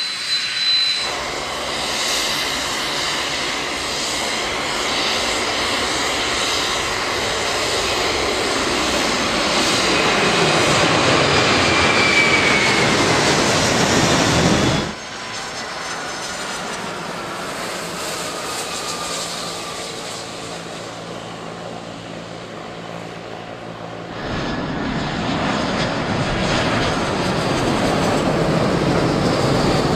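Jet airliner engines in three stretches: a widebody jet passes low overhead, growing louder with a whine falling in pitch, then cuts off suddenly; quieter steady jet engine noise follows; about 24 seconds in, the engines of a four-engine Airbus A340 on final approach come in loud.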